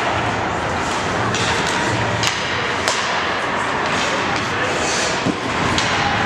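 Indoor ice hockey rink during warm-up: a few sharp clacks of sticks and pucks striking, over a steady din of voices echoing in the arena.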